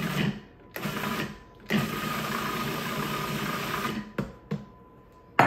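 Food processor motor pulsed in on-off bursts while blending pesto: two short pulses, a run of about two seconds, then two quick blips. A sharp knock right at the end.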